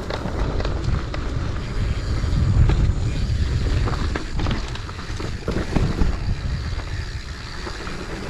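Wind rumbling on the microphone over the rattle and scattered clicks of a mountain bike rolling along a dirt trail.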